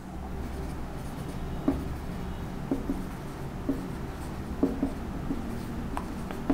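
Marker pen writing on a whiteboard: short squeaky strokes, about one a second.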